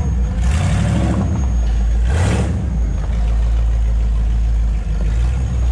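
Side-by-side UTV engine running steadily on the move, with two short bursts of rushing hiss about half a second and two seconds in.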